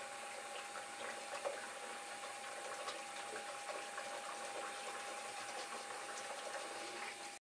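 Bathroom sink tap running, water splashing over hands being scrubbed under the stream, with a faint steady high tone beneath it. The sound cuts off abruptly near the end.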